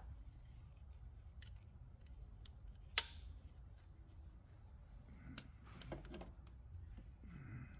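Hose-cutting pliers snipping a PCV vacuum hose: one sharp snap about three seconds in, with a few faint clicks of the jaws before and after.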